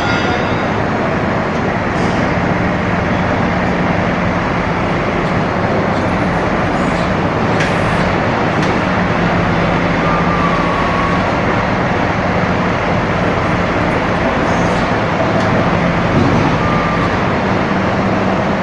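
Preet backhoe loader's engine running steadily, a constant low hum under a broad rumble.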